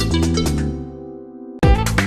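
Background music with a steady beat that fades to a sustained chord about halfway through, breaks off briefly, then comes back in at full level near the end.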